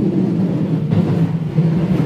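JR West 221 series electric train running along the line, heard from inside the car: a steady low rumble of wheels on rail.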